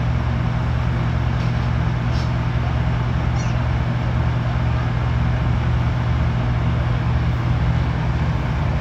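Heavy diesel truck engine running steadily at a low, even pitch, with no revving.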